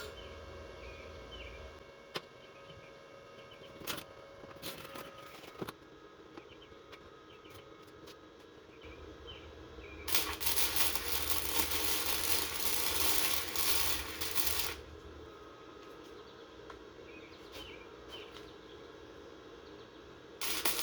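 A welding arc burns for about five seconds, starting about ten seconds in, as a weld is run along the edge of a piece of metal. Before it there are a few sharp clicks over a low hum, and there is another short burst at the very end.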